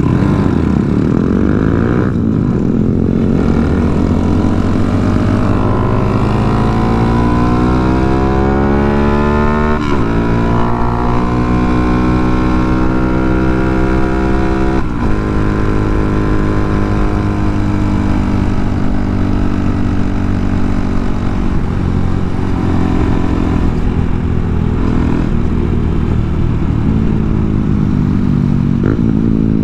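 Honda Monkey's small single-cylinder motorcycle engine under way. Its pitch climbs as it accelerates and drops sharply at gear changes about ten and fifteen seconds in, then runs at a steadier pitch.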